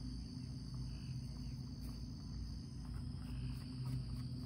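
Crickets chirping in a steady, continuous high chorus, over a low steady hum.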